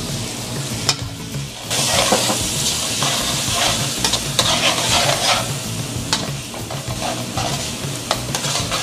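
Shrimp and chicken pieces sizzling in tamarind sauce in a metal wok, while metal tongs stir and scrape against the pan. The sizzle grows louder a little under two seconds in.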